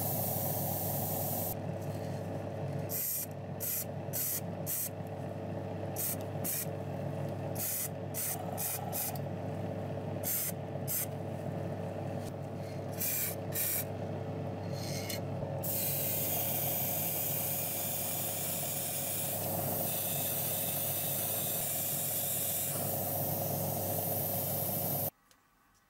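An airbrush spraying paint: first in many short hissing bursts as the trigger is worked, then in one longer continuous spray, over a steady low hum. It all cuts off suddenly near the end.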